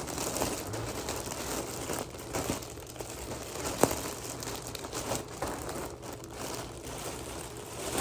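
Packaging crinkling and rustling as a plush toy is unwrapped and pulled out by hand, with scattered sharp crackles.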